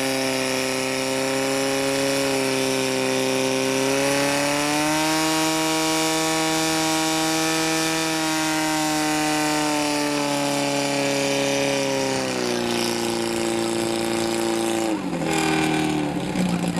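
Portable fire pump engine running steadily under load. Its pitch rises about four seconds in, holds, then drops in two steps near the end.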